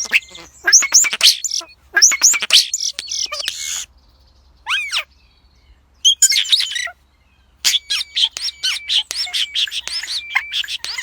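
Common starling singing: a varied run of quick chirps, sweeping whistles and clicks, with short pauses about four and seven seconds in and a single falling whistle between them.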